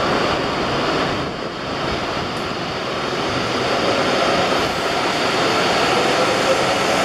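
N700S Kamome Shinkansen pulling away from the platform: a steady rumble and rush of the moving train. From about halfway through, a faint electric whine climbs slowly in pitch as the train gathers speed.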